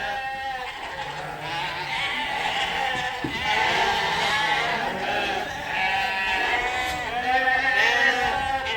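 A crowd of lambs bleating at once, many calls overlapping without a break. These are lambs just weaned and separated from their ewes, calling for their mothers.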